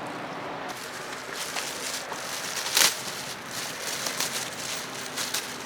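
Handling noises: irregular rustling and light clicks, with one brief louder scrape about three seconds in.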